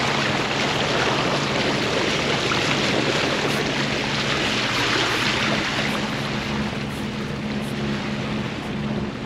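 Bow wave rushing and splashing along the hull of a sailboat under motor, with wind on the microphone, over the steady low hum of the boat's engine. The rushing is loudest for the first several seconds and eases a little near the end.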